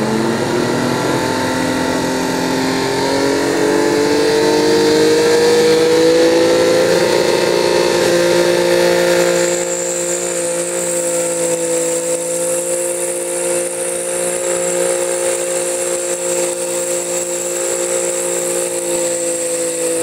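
Garden tractor engine running at full throttle while pulling the weight sled. Its pitch climbs over the first several seconds, then holds steady at high revs. A thin high whine joins about halfway through.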